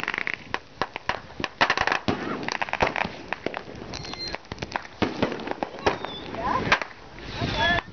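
Fireworks going off: many sharp bangs and crackles in quick, irregular succession.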